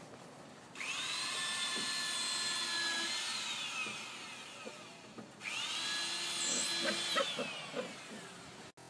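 A small electric motor starts suddenly, runs at a steady high whine for about four seconds and winds down in pitch. It runs again the same way for about three seconds in the second half, with a few short knocks during it.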